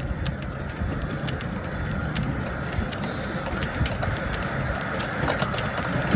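Chain-driven ride car rolling along a steel rail track: a steady rumble with sharp clicks and rattles every half second to a second.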